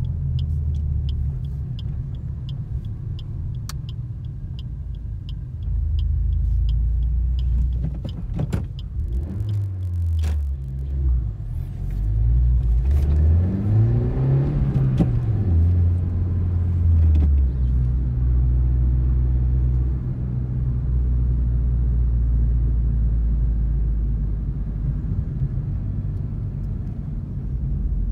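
Suzuki Swift Sport ZC33S's 1.4-litre turbocharged four-cylinder heard from inside the cabin, running at low city speed. For the first few seconds a turn indicator ticks about three times a second. Through the middle the engine revs rise and fall as the car pulls away and shifts, then it settles into a steady low drone.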